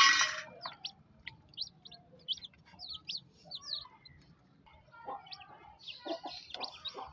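Young chicks peeping in many short, high chirps that glide quickly in pitch, with a hen clucking low among them in the second half. A louder bird call cuts off in the first half second.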